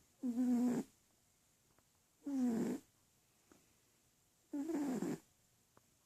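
Sleeping cat snoring: three short pitched snores about two seconds apart, one with each breath.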